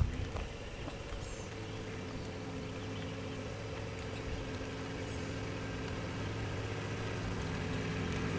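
A vehicle engine running steadily at an even pitch, a low hum that grows slightly louder over the seconds.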